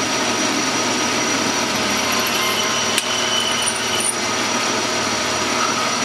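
Metal lathe running steadily while a parting tool cuts through a small spinning metal workpiece to part it off. There is a sharp tick about three seconds in, and a faint high squeal from the cut shortly before and after it.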